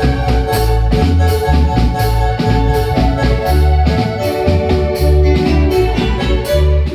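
Marimba band playing live dance music, with a steady bass and drum beat under sustained keyboard-like notes.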